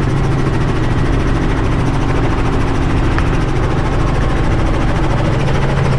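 Tour helicopter's engine and rotor running with a steady low drone, heard from inside the cabin as it settles onto the helipad to touch down.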